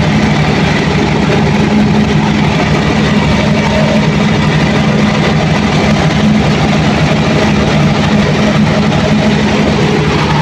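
Caterpillar C15 inline-six diesel engine of a 500 kVA generator set running steadily and loud. Its sound is not right: the owner suspects a misfire.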